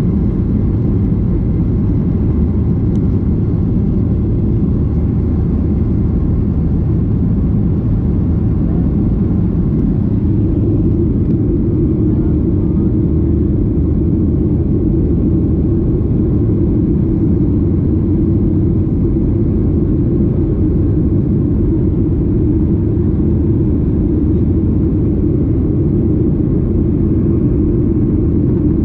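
Boeing 737-800 cabin noise: a loud, steady low rumble of engines and airflow heard from inside the passenger cabin. About ten seconds in, the rumble thickens slightly in its upper part.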